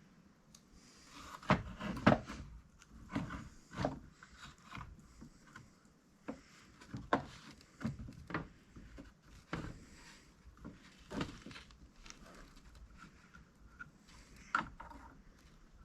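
Irregular clicks and knocks of VW rocker arm parts being handled and fitted on the rocker shaft: washers, rocker arms and the retaining pin. The loudest knocks come about two seconds in.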